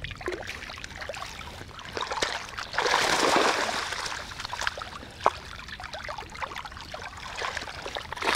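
Water gushing and splashing out through the mesh of a fishing keepnet as it is lifted from shallow river water, loudest for about a second around three seconds in, with drips and small splashes throughout and a single sharp knock about five seconds in.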